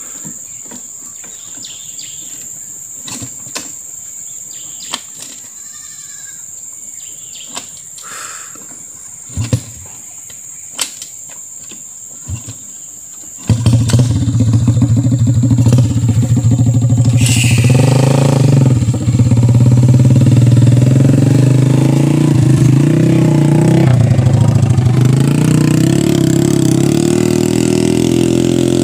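Steady high insect drone with a few knocks, then about thirteen seconds in a motorcycle engine starts abruptly and runs loud, revving up briefly as the bike, loaded with oil palm fruit bunches, pulls away.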